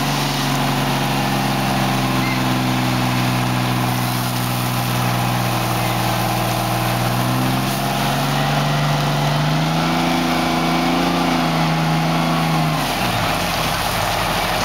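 Fire engine's diesel engine running hard at pumping speed over a steady hiss of water spray from the hoses. The engine pitch rises slightly about ten seconds in, then falls away near the end as the engine slows.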